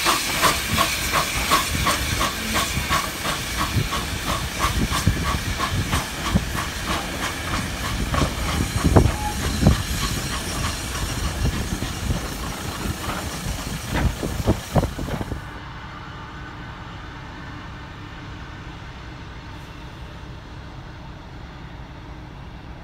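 Steam saddle-tank locomotive pulling away with its coaches: steady steam hiss with regular exhaust beats about three a second, and heavy low thuds of wheels passing over rail joints around 9 and 14 seconds in. About 15 seconds in it cuts to a much quieter steady rushing noise.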